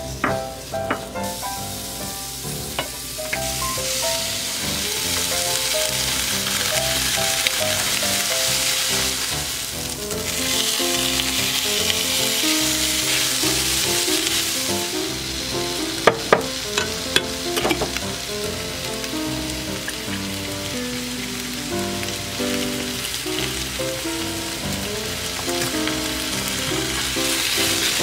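Sliced onion, carrot, chicken breast and corn sizzling in a hot nonstick frying pan while being stirred and turned with a silicone spatula, with a few sharp taps a little past halfway. Light background music plays under it.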